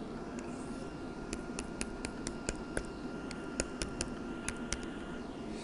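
A run of quick, light clicks, about three or four a second, from a stylus tip tapping a drawing tablet as short strokes are drawn. They come from about a second in until near the end, over a faint steady hum and room tone.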